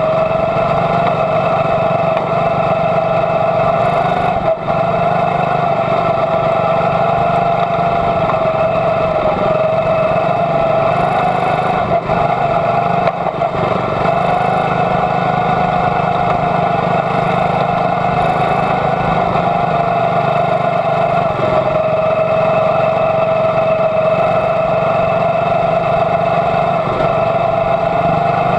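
Junior Honda quarter midget's small Honda engine running hard at a nearly constant high speed under racing load, its pitch wavering slightly through the turns, with brief dips about four and a half seconds in and again around twelve seconds.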